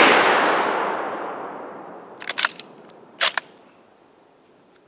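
Long rolling echo of a rifle shot from a scoped sporterized Lee-Enfield, fading away over about three seconds. Near the middle come two quick pairs of sharp metallic clicks, the bolt being worked to eject the case and chamber the next round.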